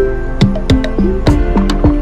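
Background music: a light tune of short, sharply struck notes over a steady beat.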